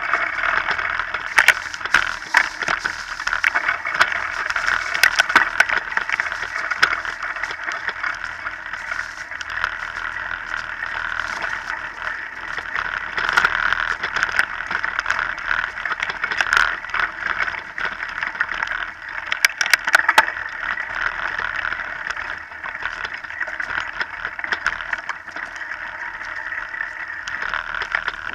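Mountain bike riding over a dirt and leaf-covered singletrack: steady rolling and wind noise with frequent rattles and sharp knocks as the bike hits bumps and roots.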